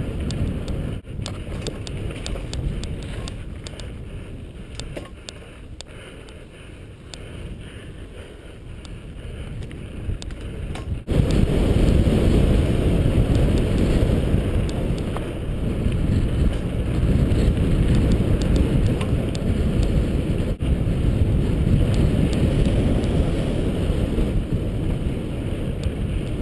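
Wind buffeting the microphone and tyre rumble from a mountain bike riding a dirt trail, with light clicks. The noise becomes suddenly much louder about eleven seconds in and stays that way.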